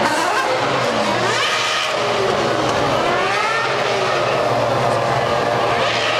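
A field of 2010 Formula One cars with 2.4-litre V8 engines accelerating hard away from the race start. Many engine notes overlap, each climbing in pitch and dropping back as the cars change up through the gears while they pass.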